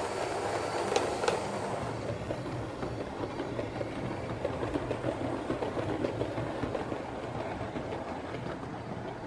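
OO gauge model train running on layout track: a Sonic Models LNER A5 tank locomotive hauling teak coaches, with a few clicks from wheels over rail joints in the first second and a half, then a steady running rumble with a low motor hum.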